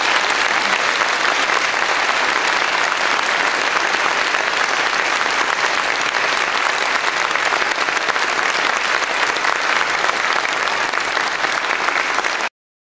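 Audience applauding steadily at the end of a choir song, cutting off suddenly near the end.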